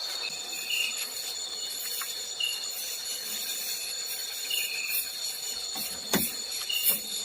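Night insects in the forest chirring in a steady high-pitched drone, with shorter chirps repeating about every second. A couple of brief knocks come near the end.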